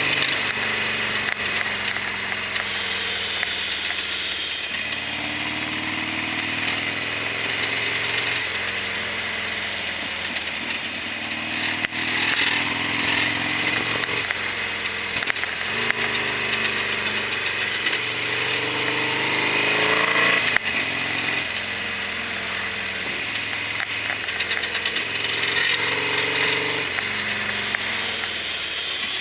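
Harley-Davidson Sportster XL1200R's air-cooled V-twin engine running under way, its pitch rising and falling in steps every few seconds.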